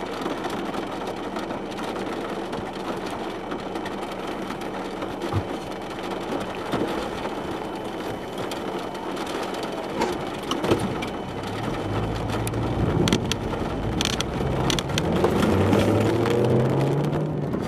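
Steady noise inside a car in the rain, with scattered taps. About twelve seconds in, a low engine note comes up and climbs as the car pulls away and accelerates.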